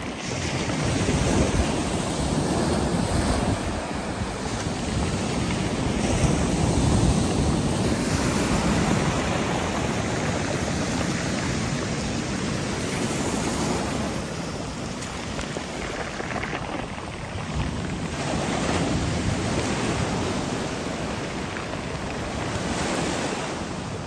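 Black Sea surf breaking and foaming on a pebble beach, a continuous rush of water that swells and eases every few seconds as each wave comes in.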